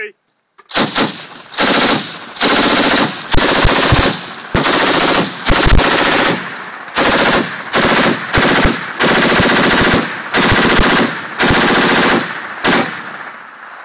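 M240 7.62 mm belt-fed machine gun firing a string of about a dozen short, closely spaced bursts, stopping about a second before the end.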